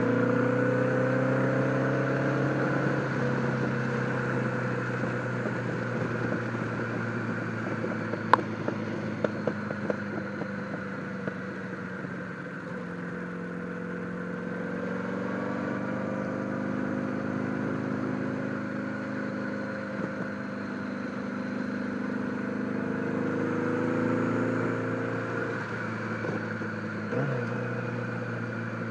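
1976 Honda Gold Wing's flat-four engine running under way, recorded through a helmet-mounted microphone. Its note falls over the first few seconds, sits lower for a while, then climbs with the throttle over the second half before easing off near the end. A single sharp click about eight seconds in.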